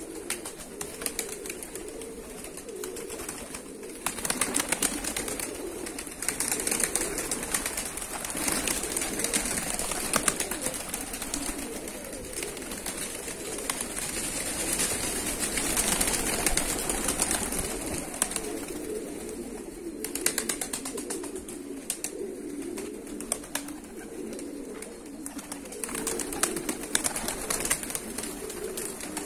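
A flock of feather-footed fighting pigeons cooing, a continuous overlapping low warbling murmur from many birds.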